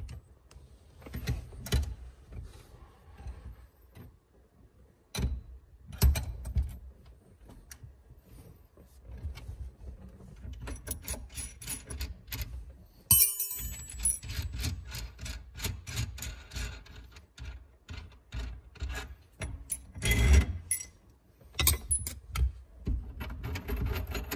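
Metal clicking and clinking as a threaded steering-column compressor tool is backed off to release the spring tension and lifted off the column: irregular small ticks throughout, busier in the second half, with one sharp click about halfway.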